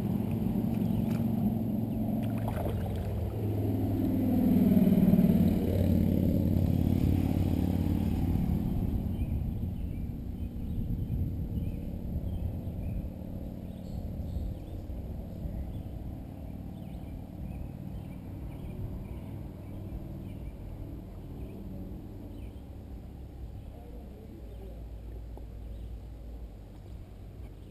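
An engine passing by, loudest about five seconds in, then slowly fading to a low rumble.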